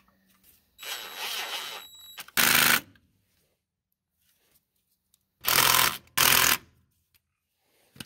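A cordless impact gun running fittings bolts on the truck's wheel in short bursts: a softer run about a second in, then three loud bursts of under a second each.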